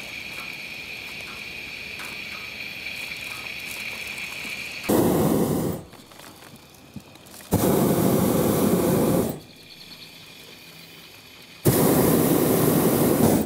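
Hot air balloon's propane burner firing in three blasts: the first about a second long, the next two about two seconds each, each starting and stopping abruptly.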